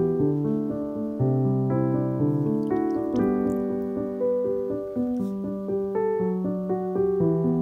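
Background piano music: a gentle melody of held notes that changes every half second or so, at an even level.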